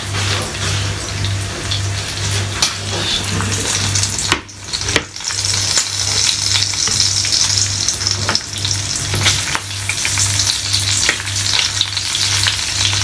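Bacon sizzling and spitting in a frying pan on the stove, a steady hiss with many small pops and crackles. The sizzle dips briefly about four and a half seconds in.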